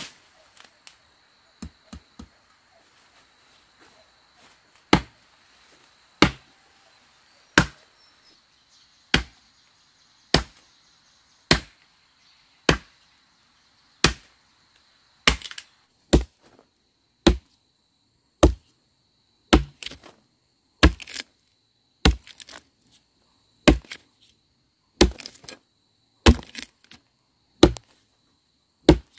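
Machete chopping into the base of a small tree trunk: sharp blows of the blade biting into wood, about one a second or a little slower, starting about five seconds in after a few light knocks.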